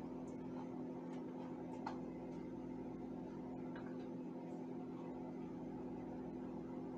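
A steady low appliance-like hum runs throughout. Over it come a few faint taps and scrapes of a spatula in a measuring cup as sour cream is scooped, mostly in the first half.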